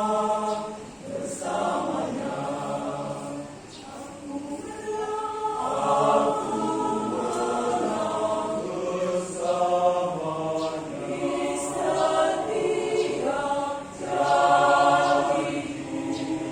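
Church choir singing a hymn in several voice parts, in long held phrases that rise and fall in loudness, swelling loudest near the end.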